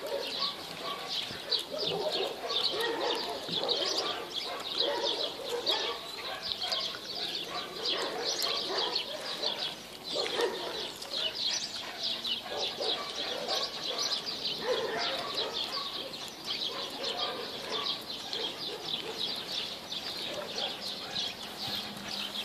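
Many birds chirping continuously and quickly, with lower, irregular calls every few seconds underneath.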